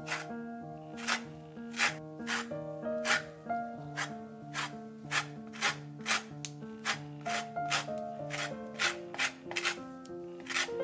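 Lemon rind grated on a flat stainless-steel hand grater: repeated scraping strokes, about two a second.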